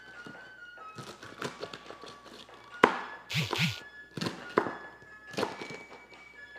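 Kitchen knife slicing a cabbage on a cutting board: irregular taps and knocks of the blade on the board, with a sharp knock about halfway through followed by two short, louder sounds. Soft background music.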